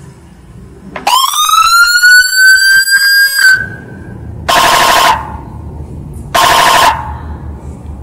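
Electronic siren sound from a phone-driven siren module, played through a toa horn loudspeaker. About a second in comes one rising wail that holds near its top pitch for a couple of seconds, then two short, loud horn-like blasts.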